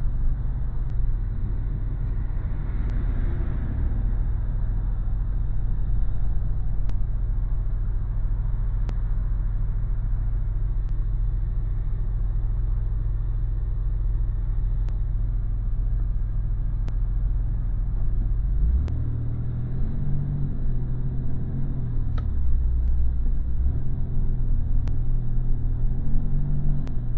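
Steady low rumble of a car's engine and tyres heard from inside the cabin while driving. From about two-thirds of the way in, the engine note rises and falls as the car speeds up.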